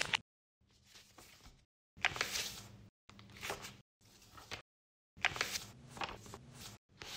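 Origami paper rustling and crinkling as it is folded and creased by hand, in short bursts of about a second. Each burst starts and stops abruptly, with dead silence between.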